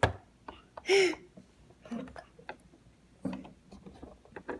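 Light clicks and knocks of plastic toy pieces being handled, with one louder, short, pitched squeal about a second in.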